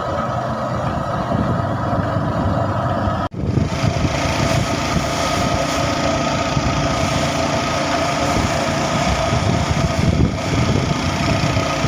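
A vehicle engine running steadily while on the move, with road noise, and a momentary dropout about three seconds in.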